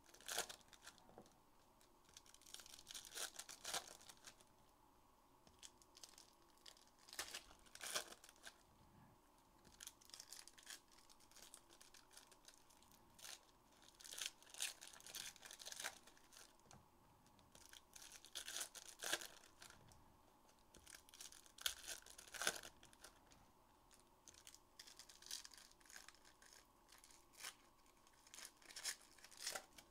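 Faint tearing and crinkling of plastic wrapping on trading card packs, in short scattered bursts every few seconds.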